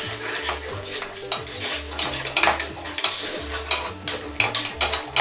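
Wire whisk beating mashed potatoes in a stainless steel saucepan, its wires clicking and scraping rapidly and unevenly against the pan.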